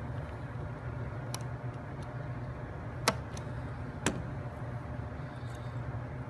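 Wooden toothpicks being cut in half: three sharp snaps, the loudest about three seconds in, over a steady low hum.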